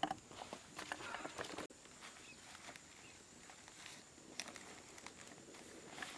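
Dry leaves rustling and crackling, busiest in the first second and a half, then quieter crinkling of banana leaves being folded by hand.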